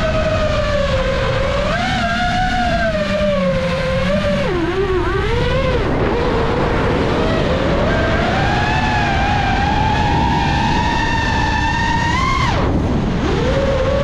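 Brushless motors and propellers of a 5-inch freestyle FPV quadcopter whining, the pitch swinging with the throttle: it dips and wobbles about four to six seconds in, climbs slowly, then drops sharply near the end as the throttle is cut and rises again. Wind rushes over the onboard camera's microphone underneath.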